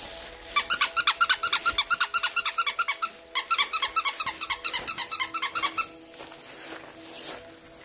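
Rubber squeaky dog toy squeaked rapidly over and over as the puppies bite at it, about eight squeaks a second in two runs, with a short break about three seconds in and stopping about six seconds in.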